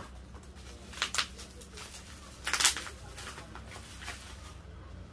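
Plastic parcel wrapping rustling and tearing as it is pulled open by hand, in two loud crinkly bursts, about a second in and about two and a half seconds in.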